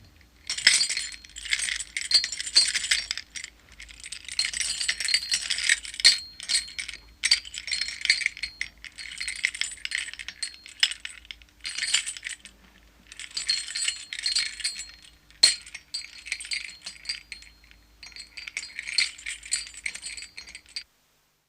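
Metal chains being shaken and rattling, in repeated bouts of jingling and clinking lasting a second or two each with short pauses between. The sound cuts off near the end.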